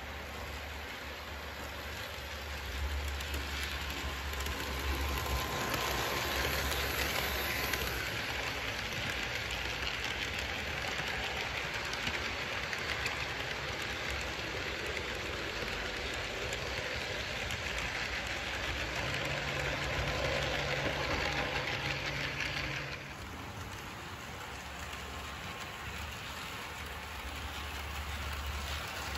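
HO scale model freight train of Tyco boxcars behind Kato Santa Fe Dash 9 and GP35 locomotives, rolling along sectional track with a steady clatter of small wheels on rail and a low motor hum. It grows louder about three seconds in as the cars pass close by, and drops back about twenty-three seconds in.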